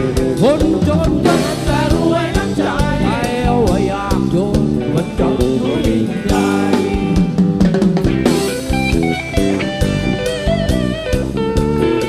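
Live rock band playing an instrumental passage: an electric guitar lead with bending, gliding notes over drum kit, bass and hand percussion.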